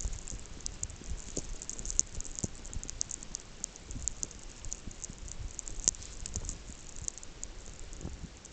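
Irregular patter of many small sharp ticks and crunches of snow, with scattered low thumps and a low rumble underneath.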